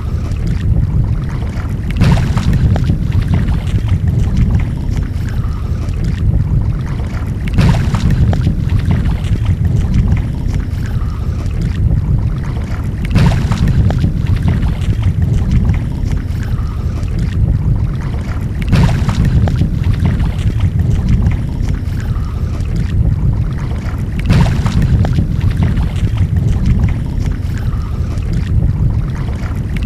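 Wind buffeting the microphone over open shallow sea water, a steady low noise that swells about every five and a half seconds.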